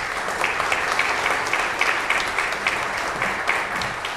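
Applause from an audience, many people clapping together, easing off slightly near the end.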